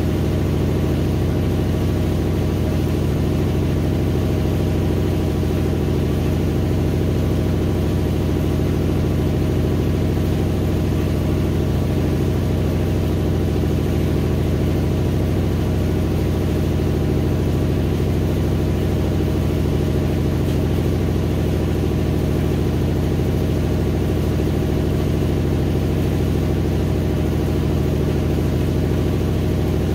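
GE GTW720BSN0WS top-load HE washing machine running steadily in its final spin, a constant motor hum with a fixed set of pitches that never changes.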